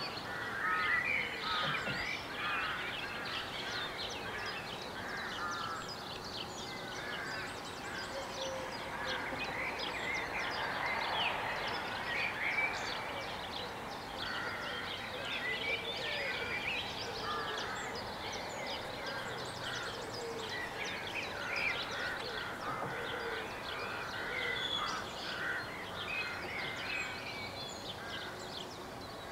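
Songbirds chirping and singing, many short calls overlapping throughout, over a steady low background of town noise.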